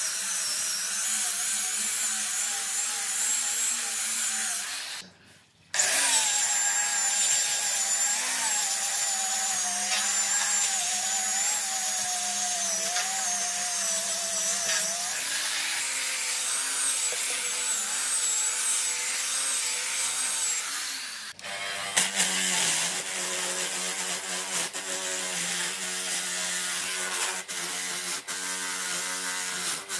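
Angle grinder with a sanding disc whining steadily as it sands a wooden tree stump, dropping out briefly about five seconds in. Around twenty-one seconds it cuts off and a different power-driven rotary brush takes over, with a steadier, more even hum, as it scrubs the stump.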